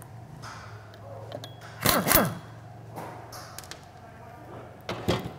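Pneumatic impact wrench undoing the nut on the rear drive pulley of a Honda Camino PA50 moped, in short bursts. The loudest burst comes about two seconds in and whirs down in pitch afterwards, with a smaller one near the end, over a steady low hum.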